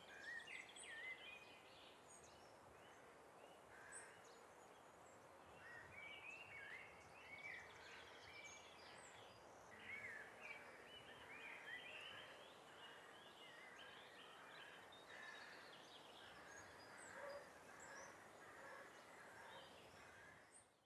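Faint outdoor ambience: small birds calling in many short chirps and whistles over a steady hiss, cutting off abruptly near the end.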